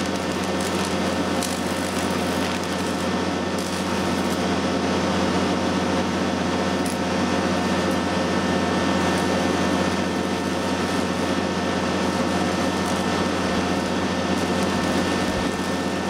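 Microwave-oven-transformer high-voltage rig buzzing steadily with a mains hum as current arcs and burns into a circuit board on damp ground, with a few sharp crackles.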